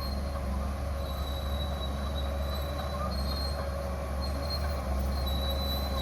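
Komatsu crawler bulldozer at work: a steady low engine drone, with thin high-pitched squeals coming and going from its steel tracks.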